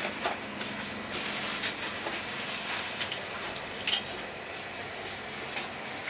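A large trevally being handled on a wooden chopping block: a few sharp knocks and clicks over a steady noisy background.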